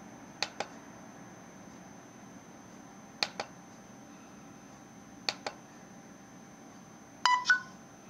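A plastic mode push button on a phone docking station clicked three times, a couple of seconds apart, each press a quick double click. Near the end come two short electronic beeps, the loudest sound.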